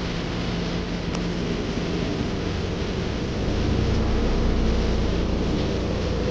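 Ferry boat's engine running steadily under a wash of wind and water noise, its low hum growing louder about three and a half seconds in.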